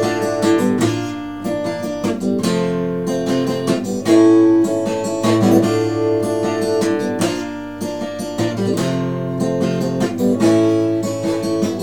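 Acoustic guitar strummed in steady chords, an instrumental passage between sung lines.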